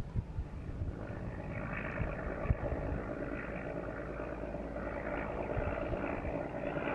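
A motor vehicle's engine running, coming in about a second in and growing a little louder, over a low rumble with a few thumps.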